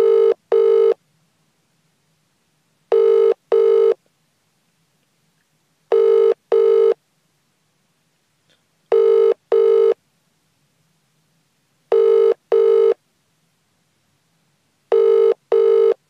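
British telephone ringing tone (ringback) as heard by the caller: a double 'ring-ring' of two short tones with a brief gap, repeating every three seconds, six times.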